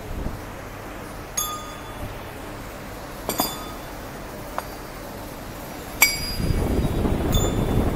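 Machined steel roll-forming rollers and spacer bushes clinking against each other as they are handled. There are about five sharp ringing metal clinks, the loudest about six seconds in, and a rustling noise rises over the last two seconds.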